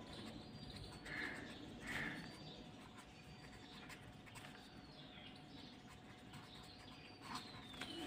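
Faint bird calls: thin high whistles that slide down in pitch, with a few short chirps, over quiet room tone with a faint steady hum.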